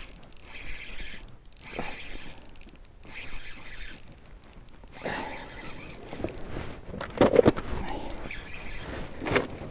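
Tsurinoya Nano 2000 spinning reel being cranked against a hooked fish, its gears giving a thin steady high whine. In the second half the whirring gets rougher and busier, with a few louder knocks.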